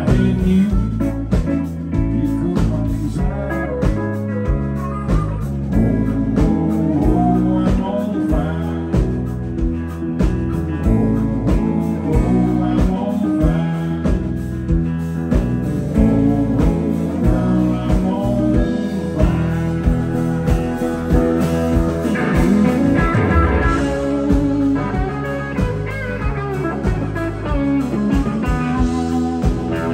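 Live country band playing: electric guitars over bass and a steady drum beat.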